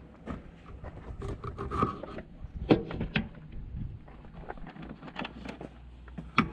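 Scattered knocks, scrapes and rubbing from sandwich making: a bread knife, tomatoes and a baguette handled on a wooden cutting board, with gear shifted about in a vehicle's rear storage. A couple of sharper knocks come about three seconds in.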